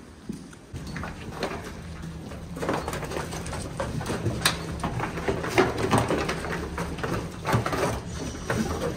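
Dairy barn sounds: a steady low hum runs under many sharp knocks and clatters, fitting cows' hooves striking a slatted concrete floor as they walk. The knocks thicken from about two and a half seconds in.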